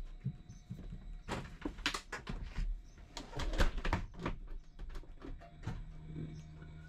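A run of irregular knocks and clicks, with a faint steady low hum coming in about two-thirds of the way through as it all fades out.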